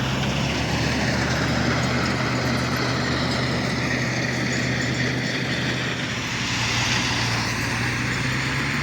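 An engine running steadily, a low even hum with a broad hiss over it.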